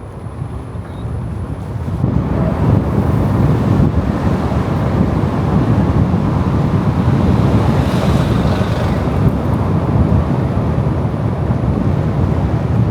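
Steady rushing road noise from a moving car, with wind buffeting the microphone, growing louder about two seconds in.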